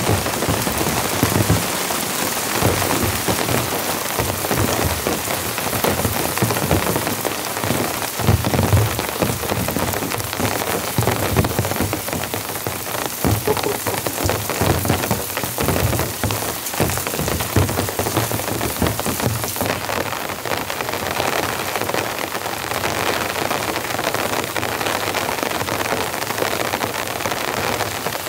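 Heavy rain falling steadily: a dense, loud patter of drops.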